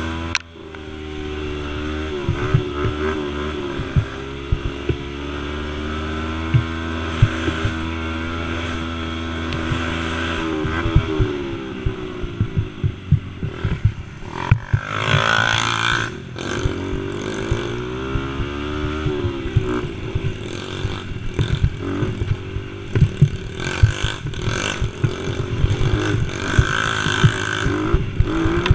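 Youth quad's engine running hard on a rough dirt trail, its pitch rising and falling as the throttle is worked, with frequent knocks and rattles over bumps. About halfway through it revs sharply up and back down.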